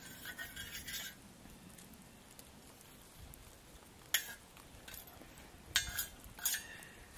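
Metal cookware clinking: the stainless steel lid of an MSR Seagull cookpot is handled in a few short, sharp clinks. The first cluster lasts about a second with a brief ring, then single clinks come about four seconds in and twice near the end.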